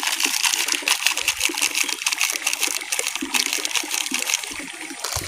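Steady splashing, trickling water noise with a dense fine crackle throughout.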